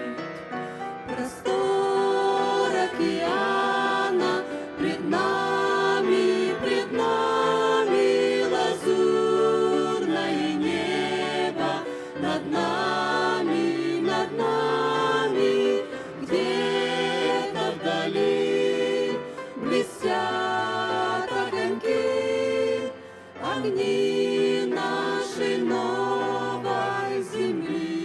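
A mixed group of men and women singing a Russian-language hymn in harmony through microphones, with a brief pause between phrases about three-quarters of the way through.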